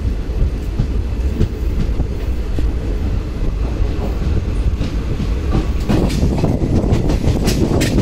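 Indian Railways passenger train running, heard from on board: a steady low rumble of the coach's wheels on the track as it pulls out of the station. From about six seconds in it grows a little louder and the wheels start clicking over the rail joints.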